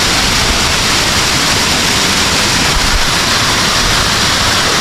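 A waterfall's water pouring down, a loud steady rush.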